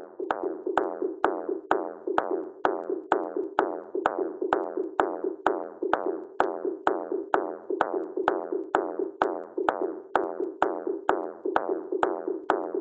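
Electronic background music: a steady drum-machine beat, about two hits a second, over a held low synth note.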